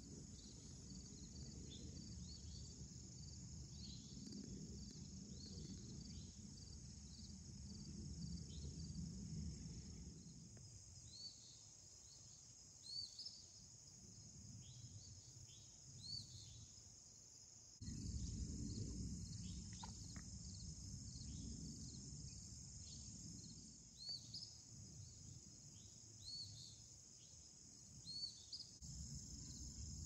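Faint insect chorus: a steady high-pitched buzz, with many short chirps scattered over it. A low rumble underneath drops out and comes back abruptly a few times.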